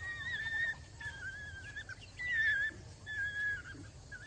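African wild dogs at a carcass giving a series of high, wavering whistle-like whines, about five calls each lasting under a second, the one about two seconds in the loudest.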